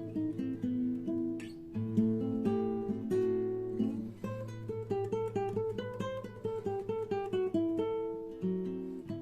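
Acoustic guitar playing an instrumental passage of a song, a quick run of picked notes and chords without singing.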